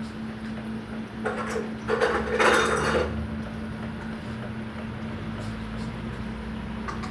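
Hand pump gun of a plastic cupping set being worked on suction cups: three short noisy strokes between about one and three seconds in, the last the loudest, then a couple of faint clicks, over a steady low hum.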